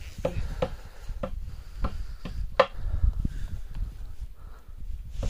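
Footsteps crunching in snow, about two steps a second, over a low rumble on the microphone.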